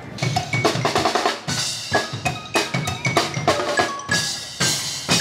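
A live band on a river boat playing drums: a drum kit with bass and snare drum in a quick, steady rhythm, with short pitched notes over the beat.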